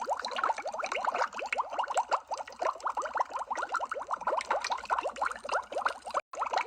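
Underwater bubble sound effect: a dense, continuous stream of small bubbles, each a short pitched blip. It drops out for an instant near the end.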